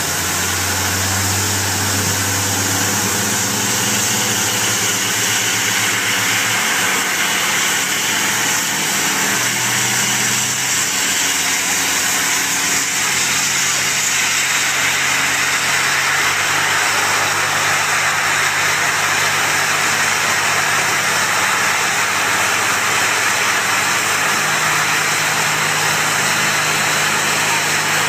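Several fire hose nozzles blasting high-pressure water jets with a steady loud hiss, over the fire engine's pump engine running steadily underneath. The hiss grows stronger about halfway through as the jets push the platform higher.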